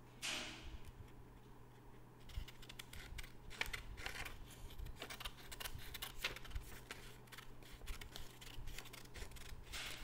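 Scissors cutting through a sheet of paper, a long run of irregular snipping clicks that starts about two seconds in. The cut trims the extra strip off a folded rectangle to leave a square. A brief rustle of the paper being handled comes just before.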